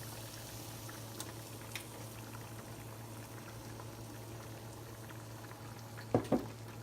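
Food bubbling and hissing steadily in pots on a stovetop. Two quick knocks come close together near the end.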